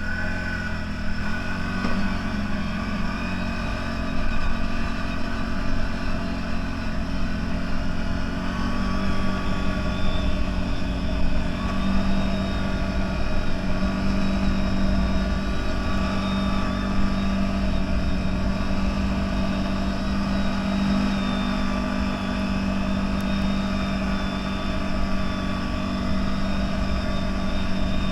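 CFMoto 1000 off-road vehicle's engine running under way, its pitch climbing in the first couple of seconds, then holding a steady drone.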